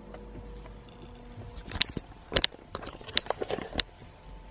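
Handling noise: a quick run of small sharp clicks and taps lasting about two seconds, starting near the middle, as the phone is handled and glasses are put on.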